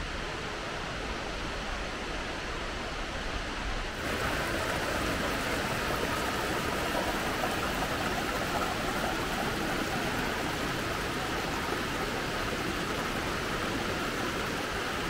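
Steady rush of a waterfall's falling water, turning louder and brighter about four seconds in.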